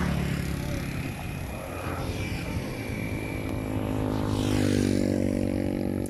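A motor engine running with a steady drone, its pitch and loudness rising slightly about four seconds in.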